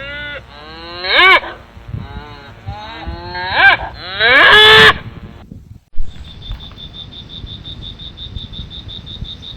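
Cattle mooing: several loud calls that rise and fall in pitch, the last one longest, ending about five seconds in. After a sudden break, a steady, rapid, high-pitched pulsing runs on.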